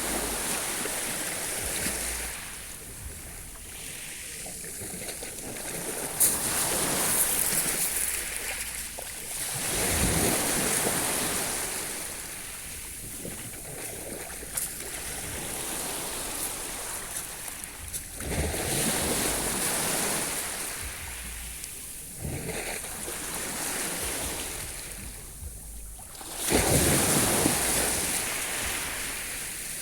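Sea waves breaking on the shore and washing back, in repeated swells of hiss. Several waves break in turn, the loudest near the end.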